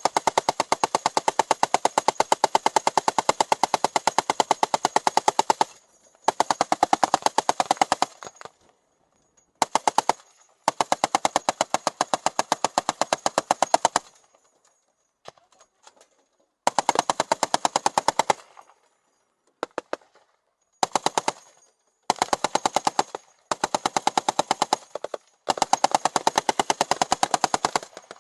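Browning machine gun firing on full automatic in rapid, evenly paced bursts. A long burst of about six seconds opens, followed by a string of shorter bursts with short pauses between them.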